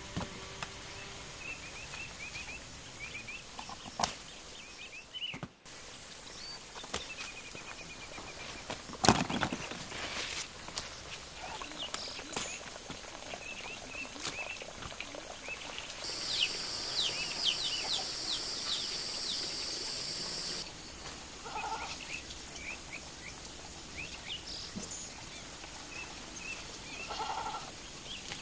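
Outdoor farm-garden ambience: small birds chirping throughout, a steady high buzz for a few seconds in the middle, and two short animal calls near the end. Occasional sharp clicks and rustling come from eggplants being picked, with the loudest click about nine seconds in.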